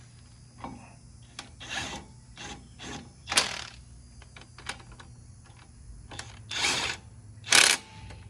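Metal hand tools clicking and clanking, with several short rasping strokes in between. The loudest strokes come about three and a half and seven and a half seconds in.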